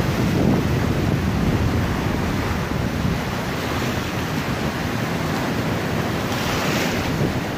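Ocean surf breaking and washing over a rocky reef shelf, with wind buffeting the microphone. A brighter hiss of a wave washing across the rocks swells near the end.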